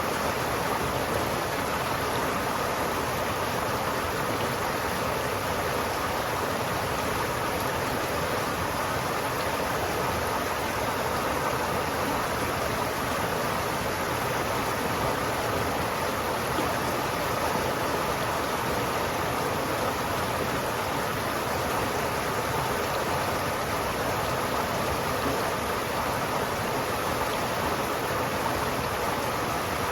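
River water flowing steadily, a continuous even rushing.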